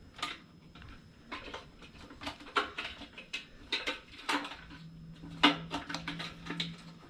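Irregular light clicks and clatter of plastic and metal parts as a new fuel pump assembly is worked down into the fuel tank of a 2017 Harley-Davidson Tri Glide.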